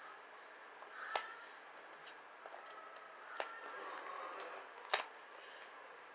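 Paper envelope and card being handled in the hands: three short sharp paper sounds over faint room noise.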